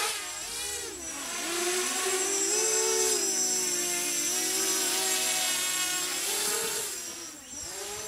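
A 280mm racing quadcopter, small motors spinning large propellers, buzzing in flight. The pitch dips and climbs back with the throttle soon after the start and again near the end, and holds fairly steady in between.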